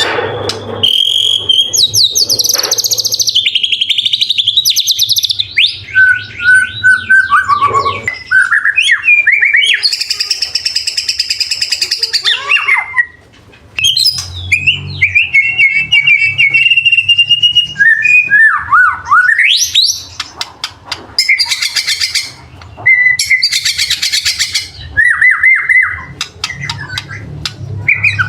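White-rumped shama singing a long, varied song of whistled phrases, rising and falling glides and fast runs of notes, broken by several harsh, rattling bursts, with a short pause about halfway through. These are the mimicked phrases (isian) and rapid sharp 'shot' notes (tembakan) that shama keepers prize.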